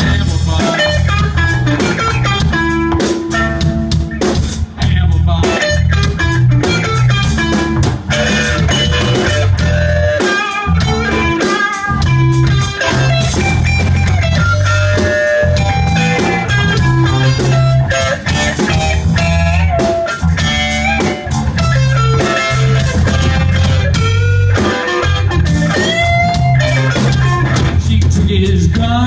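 Live rock trio of electric guitar, electric bass and drum kit playing loudly through a stretch of the song with no sung words, the electric guitar carrying the melodic lines over a driving bass and drums.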